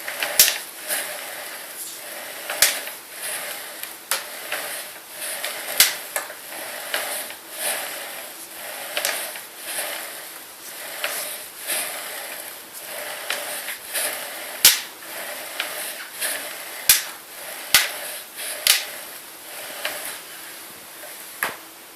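Bicycle front fork clicking and creaking over and over, in swells that come back roughly every three quarters of a second, with a handful of sharper, louder clicks at irregular moments.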